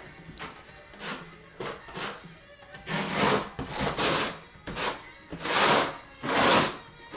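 Steel trowel scraping thinset mortar across a patched floor in repeated swipes, keying it into the substrate with the flat side; about one stroke a second, louder from about three seconds in.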